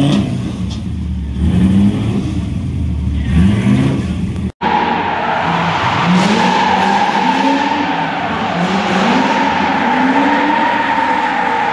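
Drift car engine revving in repeated rising sweeps. After a sudden cut about four and a half seconds in, cars are heard drifting: a steady high tyre squeal over engines that rev up again and again.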